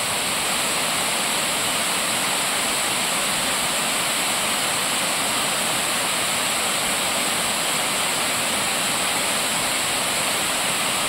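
Steady, unbroken rush of river water pouring down a small cascade, the river running high after rain.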